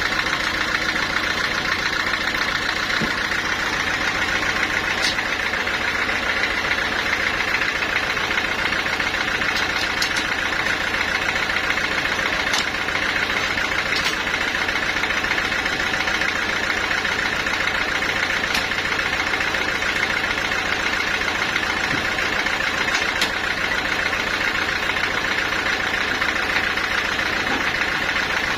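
Sawmill saw and its engine running steadily while sawing a mahogany log, with a few faint ticks.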